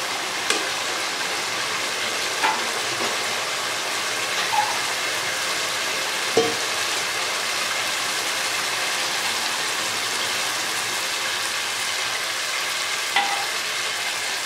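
Chicken masala sizzling steadily in a nonstick wok while a silicone spatula stirs it, with a few sharp taps of the spatula against the pan.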